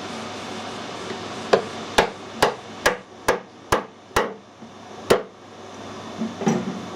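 Eight sharp hammer blows, about two a second with a short pause before the last, tapping a part of a brass lantern fitting home into an interference fit. A steady machine-shop hum runs underneath.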